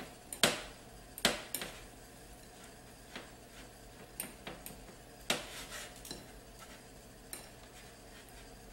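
Metal fork mashing soft boiled guagüí in a china bowl: irregular clinks and taps of the tines against the bowl, with soft scraping between them.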